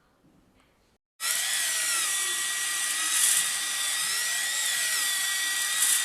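Handheld power drill-type tool running at high speed, its motor whine rising and falling in pitch. It starts abruptly about a second in.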